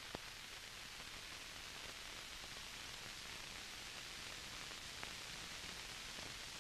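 Steady hiss of an old film soundtrack, with two faint clicks, one just after the start and one about five seconds in.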